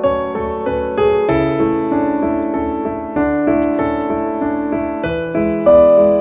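Background music: a piano playing a gentle melody over chords, the notes struck and left to ring.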